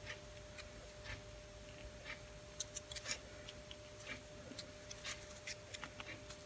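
Faint, irregular small metal clicks and scrapes of a rusty caliper being worked by hand as its parts are moved and pulled apart.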